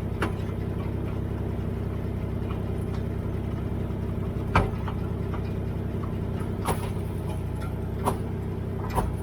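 A Dodge's engine idling steadily, with a sharp clunk about halfway through and a few lighter knocks later on: the clunking noise the vehicle is making.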